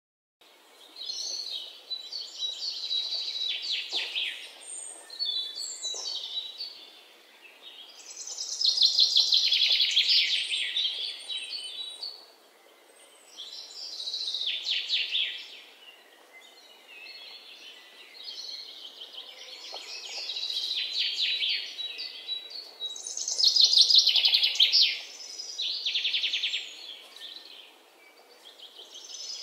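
Birds chirping in repeated bursts of rapid trills, each lasting a second or a few, over a faint steady hiss.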